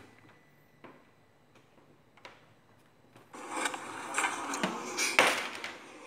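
A few faint clicks, then from about three seconds in a close, irregular rustling with a couple of sharp knocks, like handling noise from a handheld recording.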